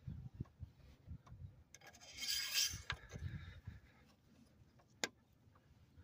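Close rubbing and soft handling knocks against the microphone, with a brief scraping hiss about two seconds in and a single sharp click near the end.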